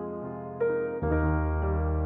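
Background music: slow keyboard notes in a piano-like sound, held and overlapping, with a new note about half a second in and a fresh chord with a low bass note about a second in.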